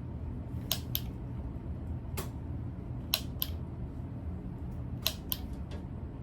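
Sears Roebuck Turn of the Century ceiling fan made by Lasko, running on medium speed with a steady low hum. Sharp clicks, often in pairs, come every second or two.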